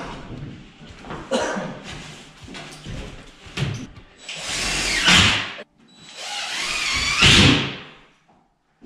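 Power drill driving screws through ceiling drywall into the joists, in two long runs of the motor about four and six seconds in. Before them come a few knocks and clunks from handling the panel.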